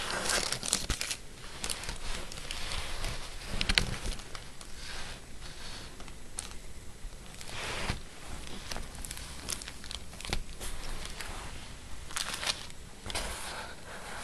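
Plastic packaging being handled and unwrapped by hand: irregular crinkling and rustling with scattered sharp clicks.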